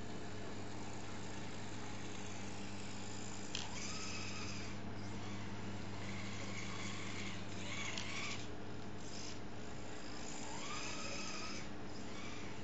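Tiny electric drive motor of a 1/87-scale RC truck whining in short bursts of a second or two, with a brief rise in pitch as several of the bursts begin, over a steady low hum.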